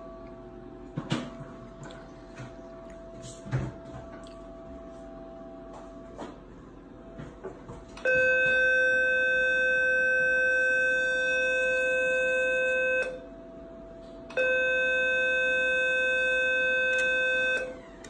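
Ellman Surgitron Dual 120 radiosurgery unit sounding its steady activation tone twice, about five seconds and then about three seconds, each starting and stopping abruptly: the audible signal that the unit is delivering output to the handpiece. A few light handling knocks come earlier.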